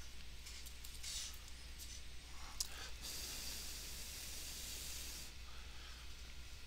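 Faint handling sounds of tape being pressed and smoothed over a plastic toy's glued wing: a few light clicks, then a soft hiss of rubbing lasting about two seconds from about three seconds in, over a steady low electrical hum.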